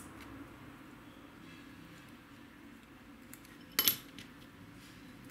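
A small metal object clinks sharply once on a hard surface, with a short high ring, just under four seconds in. A few faint ticks of small parts being handled come before and after it.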